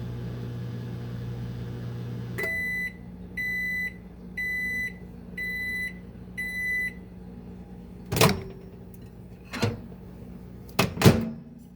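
Microwave oven humming, then cutting off with a click as the cycle ends, followed by five evenly spaced high end-of-cycle beeps about a second apart. Near the end come several sharp clicks and thumps, the last the loudest, from the door being opened and shut.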